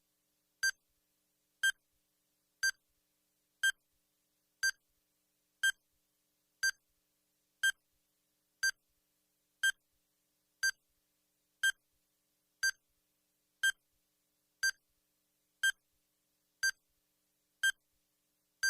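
Bomb countdown timer sound effect: short, high electronic beeps, evenly spaced at one a second, about eighteen in all, with silence between them.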